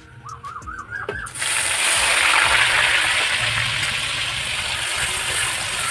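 Hot oil in an iron karahi sizzling loudly as wet masala ingredients go into it, starting suddenly about a second in and then a steady hiss. A few faint short chirps are heard just before.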